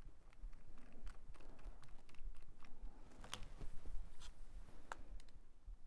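Small screws being turned into a baitcaster reel's side plate with a small screwdriver, with metal reel parts handled: irregular light clicks and ticks, the sharpest about three and a half seconds in.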